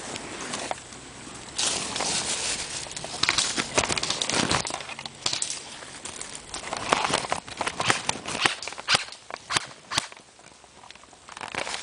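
Footsteps and rustling through dry leaves and brush, with many sharp snaps and clicks that come thickest between about seven and ten seconds in.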